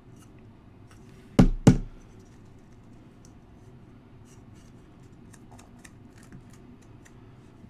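Two sharp clicks of hard 3D-printed plastic parts being pressed and snapped together by hand, close together about a second and a half in, then faint light ticks and scrapes of the parts being handled.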